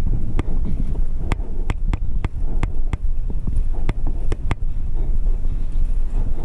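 Wind buffeting the microphone of a camera on a moving bicycle, a steady low rumble, with sharp irregular clicks and knocks from the bicycle about twice a second.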